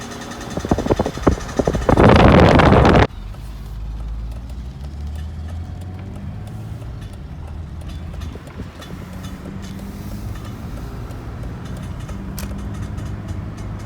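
Volvo XC90 being driven: a steady low rumble from engine and road, with faint scattered clicks that the owner suspects come from a failed CV joint on the driveshaft. In the first three seconds a run of loud irregular knocks is followed by a loud rushing noise that cuts off suddenly.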